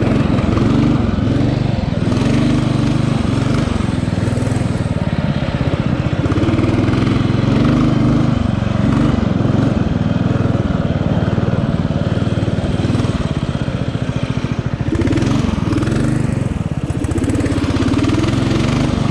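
Riding lawn mower engine running loud and continuously, its pitch rising and falling over and over as the throttle and load change.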